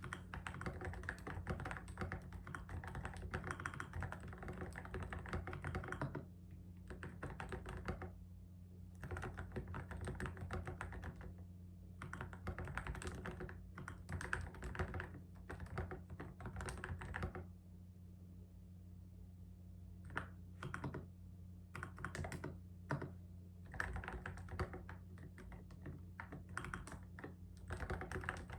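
Typing on a computer keyboard in quick runs of keystrokes, broken by short pauses, over a steady low hum.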